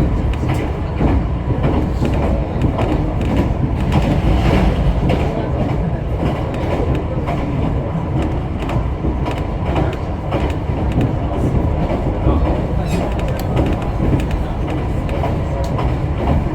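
Kyoto Tango Railway train heard from inside the car while running: a steady low rumble of wheels on rail with repeated clickety-clack from the rail joints.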